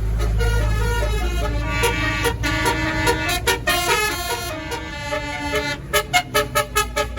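A tour bus's basuri 'telolet' musical horn playing a tune of changing held notes, then a quick run of short staccato toots near the end. A low bus engine rumble sits under the start.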